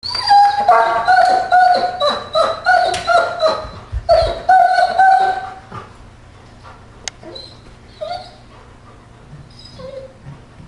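Dogs whining and yipping in loud, repeated high-pitched cries for about five seconds, then only a few faint whimpers. A single sharp click about seven seconds in.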